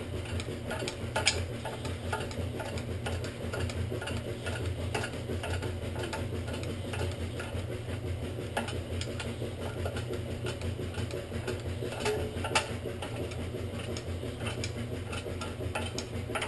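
Rear parking-brake star-wheel adjuster inside the rotor hat being turned through the access hole, tightening the drum-in-hat shoes: a run of light ratcheting clicks, with two louder clicks, one about a second in and one about three-quarters of the way through.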